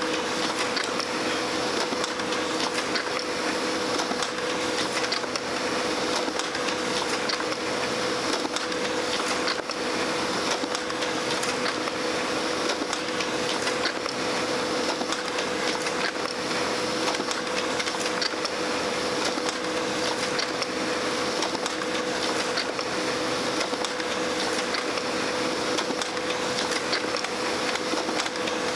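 Brother laser printer running continuously: a steady whir with a constant hum and fine, rapid ticking throughout.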